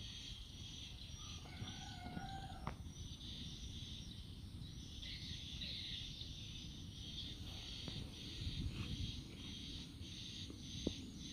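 Outdoor rural ambience: a steady, pulsing insect chorus high in pitch over a low rumble, with a short bird call about two seconds in.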